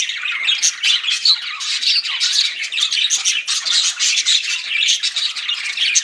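Several pet budgerigars chattering and chirping together, a dense unbroken stream of quick, overlapping high warbles and squawky notes.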